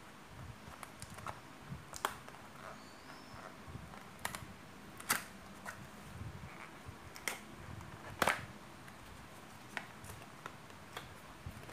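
Small cardboard product box being handled and opened by hand: scattered sharp clicks and scrapes of cardboard with soft rustling in between, the loudest snap about eight seconds in.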